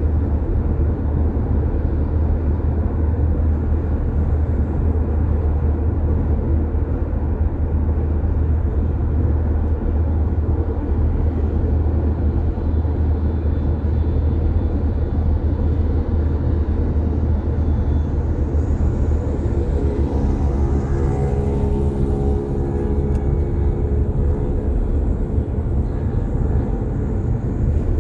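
Steady low rumble of a car driving on an expressway: tyre and wind noise. About two-thirds of the way through, a droning tone with several pitches joins it.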